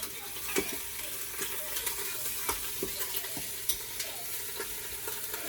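Short ribs searing in hot olive oil in a pressure cooker pot: a steady sizzle with scattered crackles and pops.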